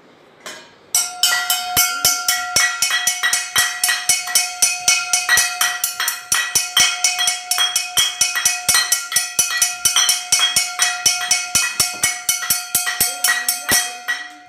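Music for a game of musical chairs, with a quick, steady beat over a held tone. It starts about a second in and cuts off suddenly near the end, the cue for the players to grab the chair.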